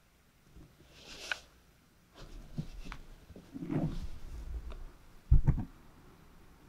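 Rustling and low thumps as a cat moves about inside a soft fabric cat house, its body brushing and bumping against the small camera; the loudest thumps come about five seconds in.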